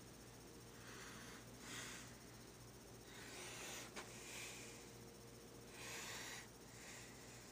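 Near silence with faint, soft breaths close to the microphone, about one every second, and a single small click about four seconds in.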